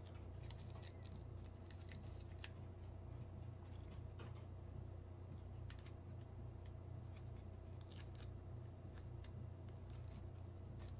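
Faint fingernail scratching and small ticks as protective paper backing is picked off a small acrylic panel, over a steady low hum.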